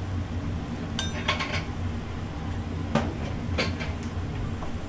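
Metal kitchenware and dishes clinking and knocking: a cluster of sharp clinks about a second in and two more around three seconds in, over a steady low hum of the restaurant kitchen.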